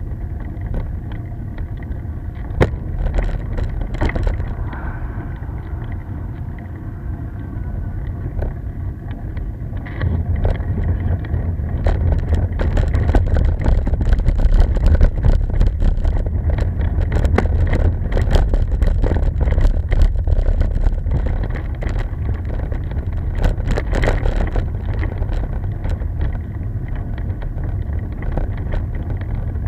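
Wind rushing over an action camera's microphone on a slow uphill bicycle ride, with rolling noise from the rough road shoulder and many small rattling clicks. The low wind rumble grows louder about ten seconds in.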